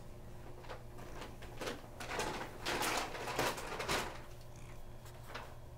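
Hand rubbing and scratching a cat's chin and cheek fur at close range: irregular rustling swishes, strongest in the middle, over a steady low hum.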